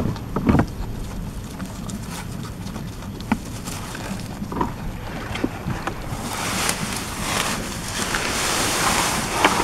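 Wind rumbling on the microphone, with a few short soft crunches as a young goat bites and chews grass. About six seconds in, a louder rustling hiss of grass brushing against the microphone.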